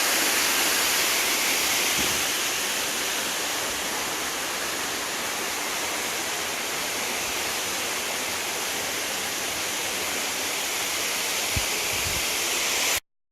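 Small waterfall rushing and splashing steadily, a bright, even rush of falling water; it cuts off abruptly near the end.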